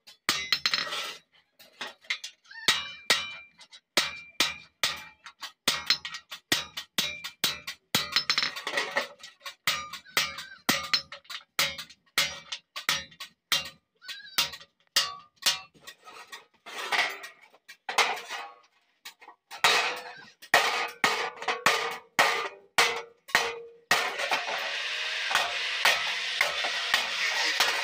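Hand hammer striking iron on an anvil while forging a hasua blade, in a steady rhythm of about two blows a second, each with a metallic ring. Near the end the blows give way to a steady rasping noise.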